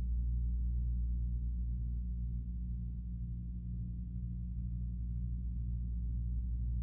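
Steady low hum with no change and no other distinct sound over it.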